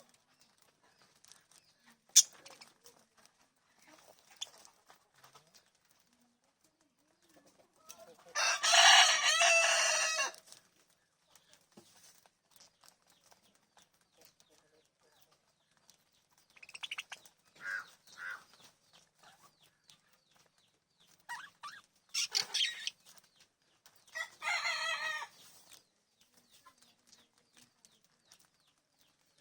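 Birds calling: a loud, about two-second call a little over eight seconds in, then shorter calls around seventeen, twenty-two and twenty-five seconds. A single sharp click comes about two seconds in.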